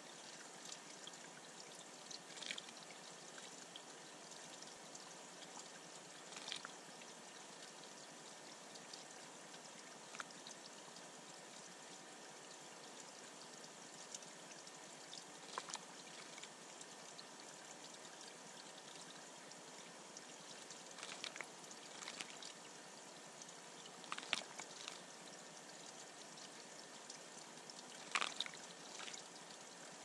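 Steady trickle of water running into a shallow pebble-bottomed bird pond, with a handful of short splashes from a male indigo bunting bathing in it, the loudest two near the end.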